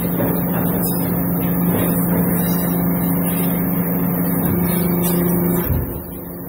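Hydraulic deep-drawing press running as its ram lifts the upper die off a drawn pot: a steady hum with a rushing, hissing flow noise. The sound drops sharply near the end as the ram stops.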